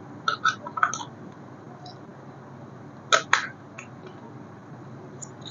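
A few short, sharp clicks and taps over a steady low hum. They come as a cluster of three or four in the first second, two louder ones about three seconds in, and a few faint ticks.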